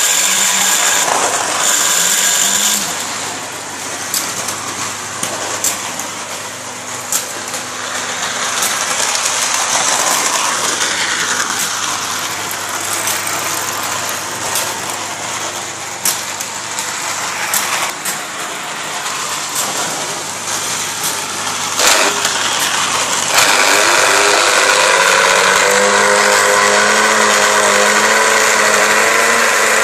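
Small electric motors of Lionel model-train accessories running, with scattered clicks and rattles; about three quarters of the way in a louder motor starts, a steady pitched hum.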